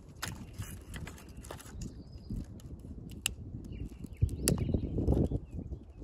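Dry twigs and thin branches snapped by hand, a few sharp cracks, with wind buffeting the microphone as a low rumble that grows strongest about four seconds in.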